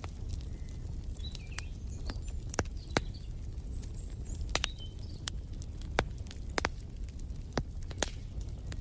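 Wood fire crackling, with scattered sharp pops over a low steady rumble, and faint bird chirps in the background.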